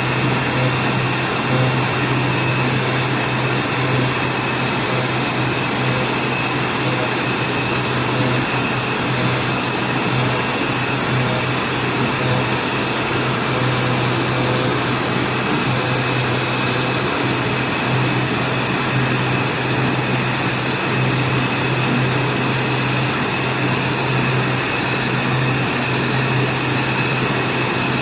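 CNC router running steadily, an even machine hum with a thin high whine above it, with no change in load.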